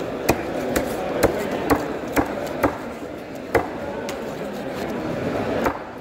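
A large knife chopping through a fish into a wooden block, cutting it into steaks: sharp knocks about two a second, then slower, with a last knock near the end, over steady market hubbub.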